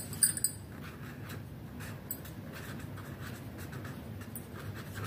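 Handwriting on ruled notebook paper: the writing tip scratching lightly and irregularly across the page as letters are formed, with a couple of small taps right at the start.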